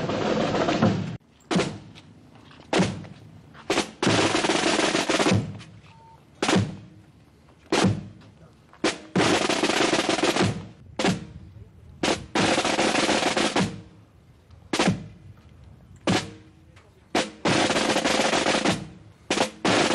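Military drums beating a slow funeral cadence: a few single strokes about a second apart, then a roll lasting a second or two, the pattern repeating about every four to five seconds.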